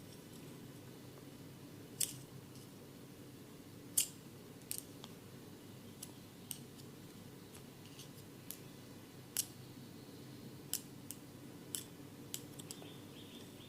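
About a dozen short, sharp clicks of a small hand tool at irregular spacing, the loudest about four seconds in, over a steady low hum.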